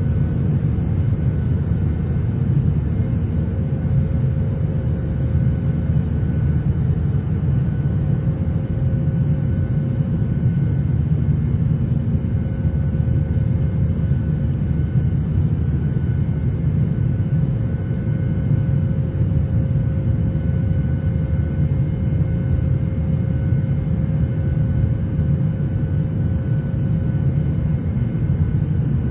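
Airliner cabin noise in flight: a steady low rumble of engines and airflow with a faint constant hum over it.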